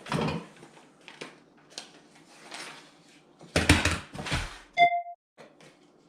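Packing paper rustling and crinkling as hands dig through a shipping box, loudest a little past halfway. Just before the end a short, bright ding sounds and cuts off suddenly.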